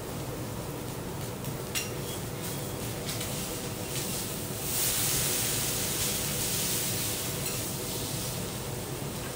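Beef steak sizzling on a hot steel teppanyaki griddle, with clinks of a metal spatula and fork against the plate. The sizzle swells noticeably louder about five seconds in, then eases a little.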